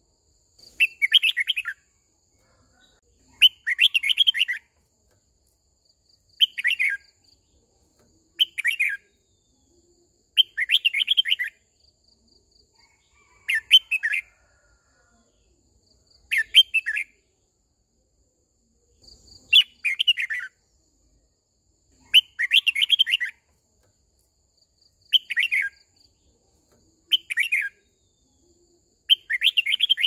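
Red-whiskered bulbul singing short, loud, warbling phrases, about a dozen of them, one every two to three seconds with silence in between. It is a lure bird's song, of the kind used to call a flock.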